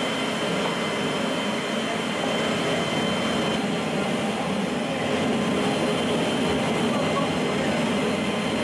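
Steady jet-engine and airflow noise inside the cargo hold of a C-17 military transport aircraft, with a faint high whine that stops about three and a half seconds in.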